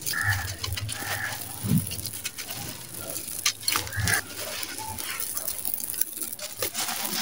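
Dry sand-cement lumps crumbling and crunching in the hands, with the loose grit pattering down in a stream of fine crackles. A bird calls a few times in the background.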